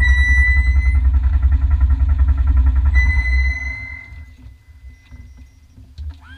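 Renault Mégane N4 rally car's engine idling with a low throb that dies away about three and a half seconds in, while a high steady beep sounds twice.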